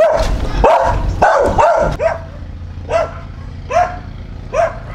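A dog barking: a quick run of barks for about two seconds, then single barks roughly one a second.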